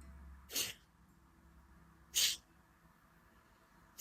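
Bhastrika (bellows breath): sharp, forceful exhalations through the nose, one about every second and a half to two seconds, with three in all and the last at the very end.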